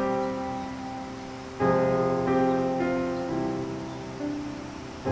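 Background piano music: slow, gentle chords, each struck and left to ring and fade before the next.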